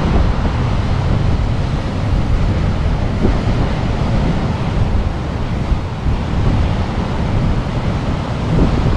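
Strong wind buffeting the microphone over the steady wash of breaking surf.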